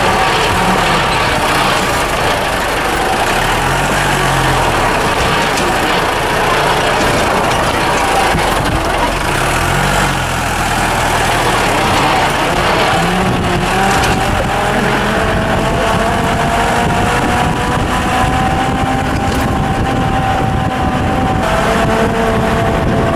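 A vehicle's engine running as it drives along a rough dirt road, heard from on board, with steady road and wind noise. Its pitch shifts up and down, and a whine rises slowly in pitch through the second half.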